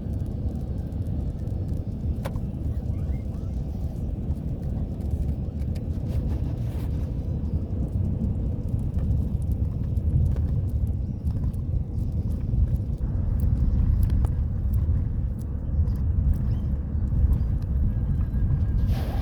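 Car cabin noise while driving: a steady low rumble of tyres and engine, with scattered light ticks over it.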